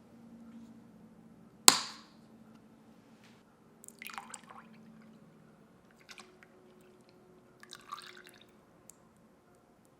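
Small liquid and glass handling sounds while the homemade castile-soap cleaner is mixed: one sharp click, the loudest sound, nearly two seconds in, then short splashes and clinks about four and eight seconds in.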